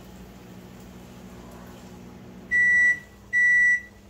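Microwave oven running with a low hum that cuts off about two and a half seconds in, followed by two long, high-pitched beeps signalling that the heating cycle has finished.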